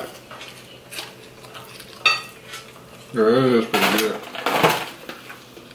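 Forks scraping and clinking on plates, with one sharp ringing clink about two seconds in. After about three seconds comes a short hummed "mm", then close-up chewing as a breadstick is bitten.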